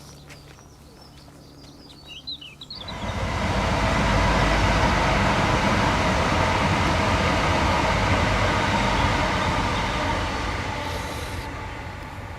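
A train passing along the line close by: birds chirp quietly at first, then about three seconds in the train noise rises suddenly, stays loud for several seconds and slowly fades as it goes away.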